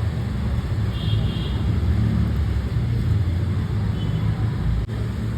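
A steady low rumble of a running motor, with no rhythm or change.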